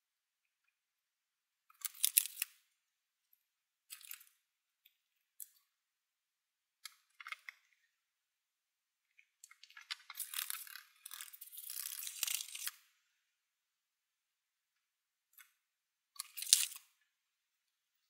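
Short scrapes and clicks of small knife-handle parts being handled on a workbench and epoxy being spread with a wooden stick, with a longer stretch of scraping about ten seconds in.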